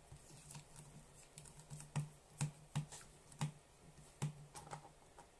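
Small, sharp, irregular clicks and taps of a small screwdriver and tiny case screws being handled against a Sony Walkman WM-50's casing as it is taken apart, the loudest handful coming in the middle.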